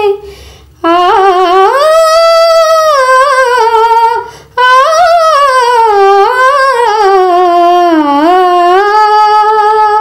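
A woman humming a slow, ornamented melody in two long phrases, the pitch gliding and wavering. The second phrase starts about halfway through, after a brief breath.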